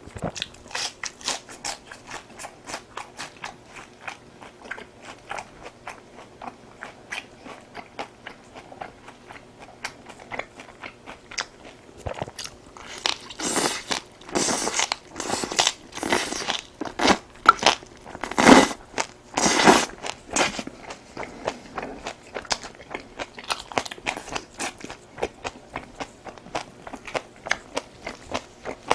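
Close-miked chewing: a steady run of small wet clicks and crunches as a person eats, with louder, longer crunching bites from about 13 to 20 seconds in.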